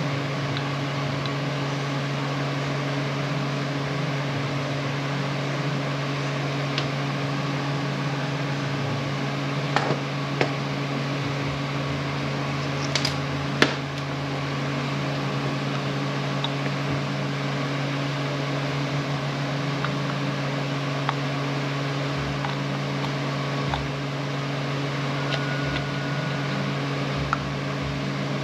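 Steady low mechanical hum, with a few light clicks and taps of small impact-wrench parts being handled, the sharpest about halfway through.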